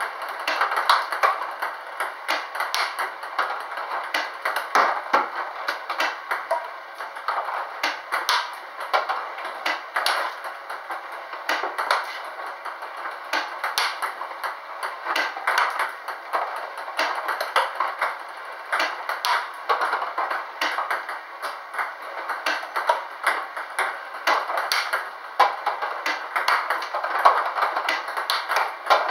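Table tennis ball clicking in a fast, continuous drill: fed by a ball-throwing robot, struck back with a Chinese-style penhold paddle, and bouncing on the table, a couple of hits a second over a steady hiss.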